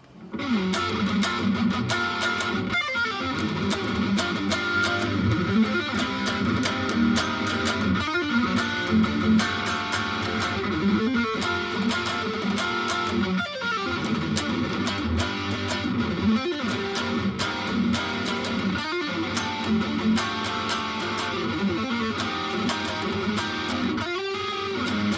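Electric guitar playing an original riff that repeats about every two and a half to three seconds, starting just after the opening.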